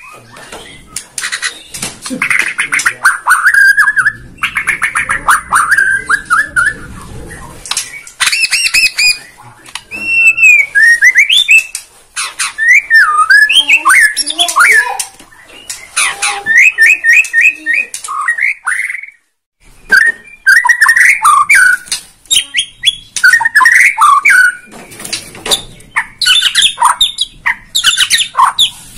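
Bornean white-rumped shama singing a loud, varied song of clear whistles, pitch glides, trills and rapid runs of repeated notes, pouring out its repertoire of learned phrases, with one brief pause near the middle.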